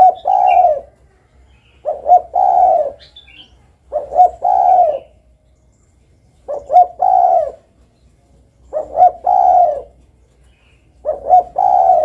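Derkuku dove cooing repeatedly: six calls about two seconds apart, each a quick clipped note or two followed by a longer coo. Faint higher chirps are heard between the coos.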